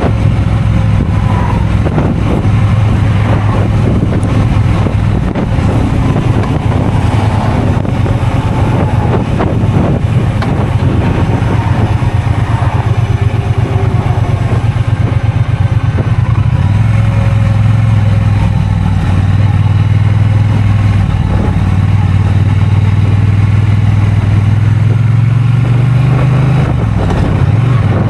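2023 Triumph Bonneville T120's parallel-twin engine running steadily at a low, even pitch. Near the end the engine note rises briefly, then drops.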